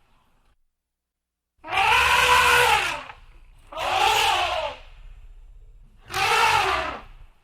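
Elephant trumpeting: three loud, brassy calls, each about a second long, the first starting about one and a half seconds in.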